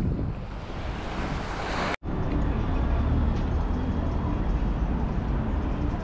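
Waves washing onto the beach with wind buffeting the microphone, cut off sharply about two seconds in. A steady low rumble of a duller background follows.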